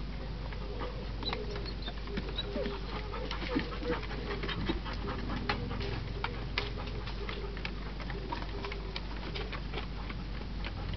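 Dogs panting, with frequent short irregular clicks and taps.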